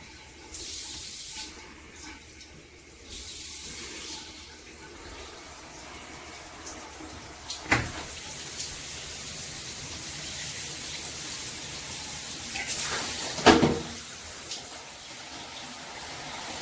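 Water spraying steadily from a handheld shower head, with two short louder spells early on and two sharp knocks, about eight and thirteen and a half seconds in.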